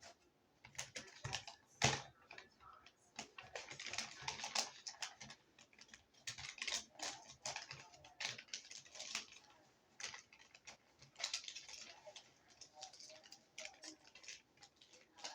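Irregular clicks and crackles of close handling noise, coming in uneven clusters with brief lulls, the loudest click about two seconds in.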